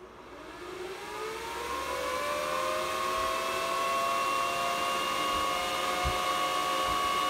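Antminer S9 Bitcoin miner's 120 mm cooling fans spinning up to full speed: a whine that rises in pitch and grows louder over the first two seconds, then holds as a steady, loud whir.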